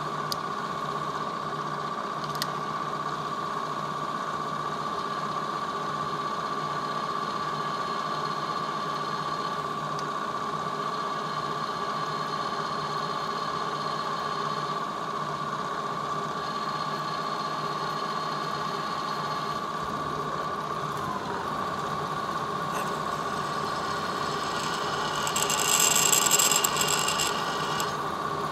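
Lagun vertical milling machine's spindle running with a steady whine, briefly sagging in pitch about two thirds of the way through. Near the end a drill bit cutting into the metal workpiece adds a louder, high, hissing screech for about two seconds.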